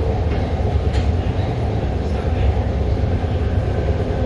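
Newer Alstom/Bombardier-built BART rapid-transit car running at speed, heard from inside the car: a steady, heavy low rumble of the train on the track.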